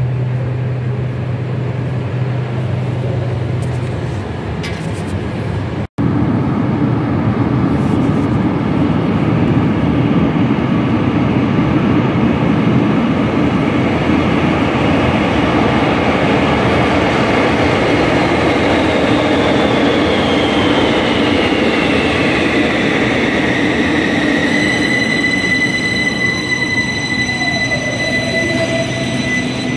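Algiers Metro train arriving at an underground platform: a steady rumble of wheels on rails, with an electric whine that falls in pitch as the train slows and then holds steady near the end. The first few seconds are a steady low hum, cut off abruptly about six seconds in.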